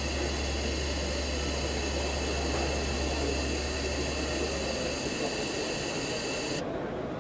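Laser welding workstation running through an automated weld: a steady hiss over a low hum. The hum stops about five seconds in, and the hiss cuts off suddenly near the end.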